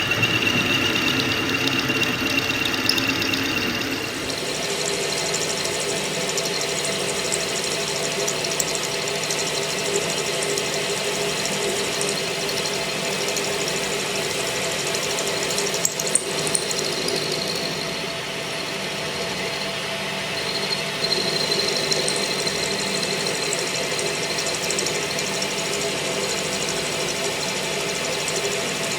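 Workshop machine running steadily, with its sound changing abruptly about four seconds in and faint high tones coming and going later.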